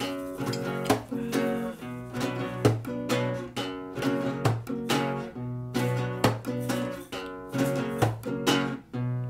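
Acoustic guitar strummed in a steady rhythm, about two strokes a second, with the chords ringing between strokes.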